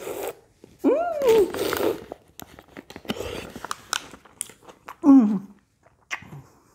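Close-up chewing of a fresh piece of tomato: wet biting and crunching clicks, with two short voiced hums of enjoyment, about a second in and about five seconds in.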